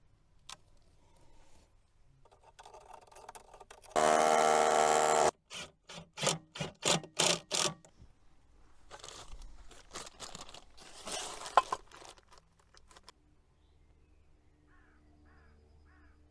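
Carpentry tool work on timber. A power tool runs for about a second, then about seven quick rasping strokes follow, then quieter scraping with a sharp click.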